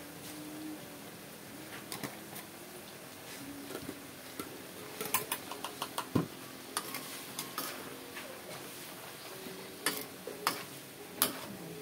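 Stir-fry in a wok: bitter gourd and its leaves sizzling faintly and steadily, with sharp clinks and knocks of metal utensils, a quick run of them about halfway through and a few louder ones near the end as a metal spatula stirs and scrapes the pan.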